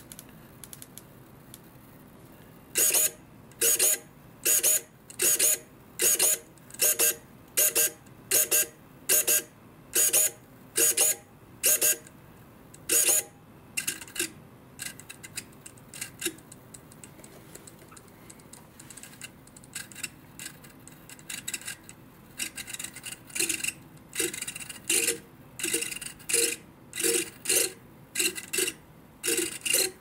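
Bluebird M15V micro wing servo, a coreless motor driving all-metal gears, whirring in short bursts as it swings a pointer arm between its throws in a centering test. One quick whir with each move, repeated about every 0.7 seconds, fainter for a few seconds near the middle before the moves pick up again.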